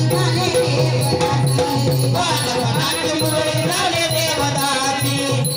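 Marathi devotional folk music for Khandoba: a regular drum beat under a wavering melody, with shaken rattling percussion running through it.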